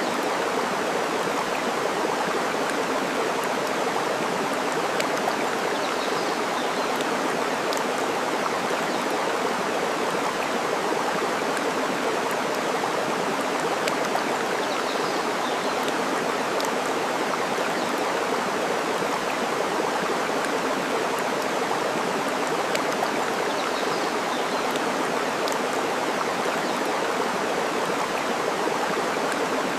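Steady rush of running water, with scattered sharp crackles from a burning wood fire and three faint bird chirps about nine seconds apart.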